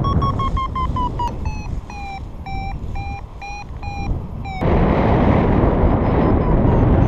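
Paraglider's variometer sounding: a steady tone that rises a little and falls in pitch, then breaks into quick even beeps, about two or three a second, slightly lower; the beeping of a vario signals climbing air. Wind rushes over the microphone and grows loud about two thirds of the way in, covering the beeps.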